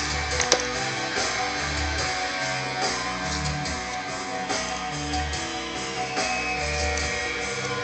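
Background music led by guitar, with a low bass line repeating evenly throughout. A single sharp click sounds about half a second in.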